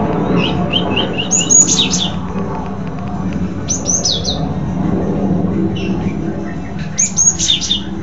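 Caged cinereous tit (gelatik batu) singing in three quick bursts of high, sharp, rapidly repeated notes, over a steady low background rumble.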